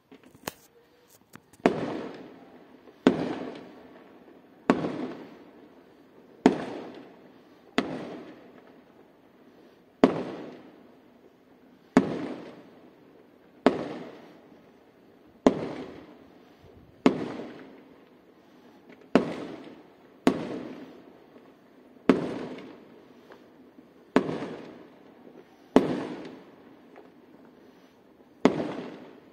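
Aerial fireworks going off one after another. After a few faint pops, there is a sharp bang every second and a half to two seconds, each trailing off in a rolling echo.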